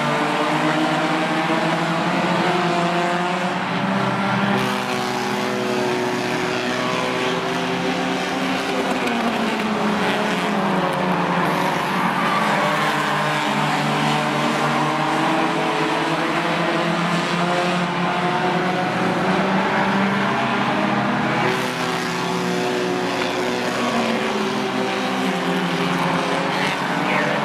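A pack of compact stock cars racing on a short paved oval. Several engines run hard together, their pitches rising and falling as the cars go through the turns and down the straights.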